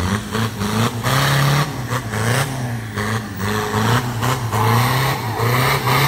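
Off-road vehicle's engine revving in repeated surges, its pitch rising and falling every second or so.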